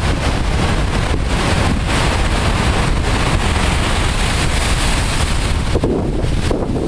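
Storm-driven surf breaking and spraying over a rocky shore, a continuous rush of water. Strong wind is buffeting the microphone.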